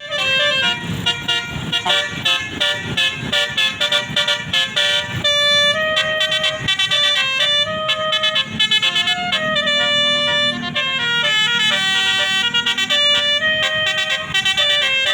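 A bus's basuri musical air horn playing a fast telolet tune of short, quickly changing tooting notes.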